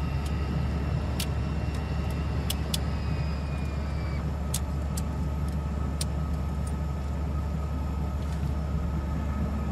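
Cabin interior of a Beechcraft King Air twin turboprop: a steady low drone from the PT6A turboprop engines and propellers, with scattered light clicks and rattles. A faint high whine drops away about four seconds in.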